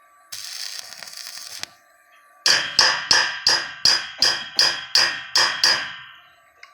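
A hammer striking metal about ten times at roughly three blows a second, each blow ringing, preceded by a short burst of hiss lasting about a second.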